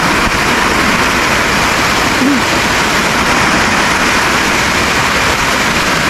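Waterfall rushing: a loud, steady rush of falling water.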